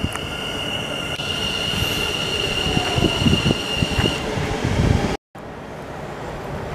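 NS Sprinter New Generation electric multiple unit, two coupled units, pulling slowly into a platform, with a steady high squeal that stops about four seconds in and low thuds from the wheels. The sound cuts out for a moment a little after five seconds, then only wind noise remains.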